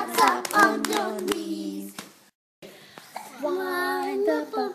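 A group of young children singing together, with hand clapping in the first two seconds. The audio cuts out for a moment just past halfway, then the singing picks up again.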